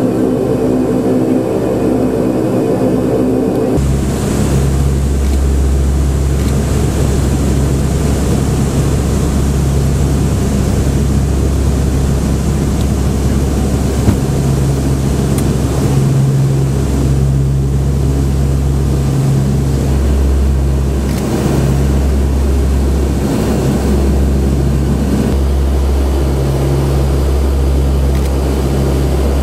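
C-130H Hercules' four Allison T56 turboprop engines and propellers running steadily, a loud heavy drone with a low propeller hum. The tone of the drone changes abruptly about four seconds in.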